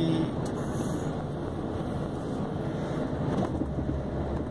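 Cab noise of a VW Constellation 24-280 truck on the move: the diesel engine running steadily at low speed, with road and tyre noise.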